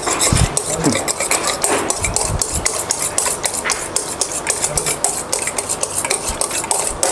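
Wire balloon whisk beating egg whites in a stainless steel bowl: a rapid, even run of the wires clicking and scraping against the metal, about five or six strokes a second. The whites are not yet beaten stiff.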